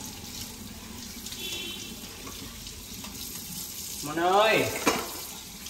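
Water running steadily from a tap into a sink. About four seconds in comes one short, loud voiced call that sweeps up and then down in pitch.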